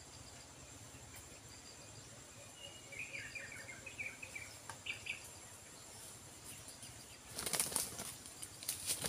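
A bird's wings flapping in quick, loud flurries from about seven seconds in. Before that come a few short, high chirps.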